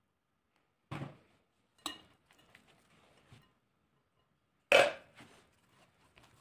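Spoons knocking against a glass mixing bowl while olive oil is worked into a rough dough: three sharp knocks about a second apart and then near the end, the last the loudest, with faint stirring and scraping between.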